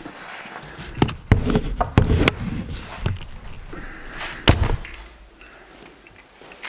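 A handful of sharp knocks and thuds, about six spread over the first five seconds, the last and one of the loudest about four and a half seconds in.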